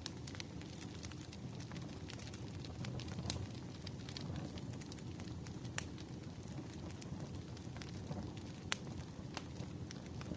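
Wood fire crackling, with frequent small snaps over a low steady rumble. A few sharper pops stand out near the end.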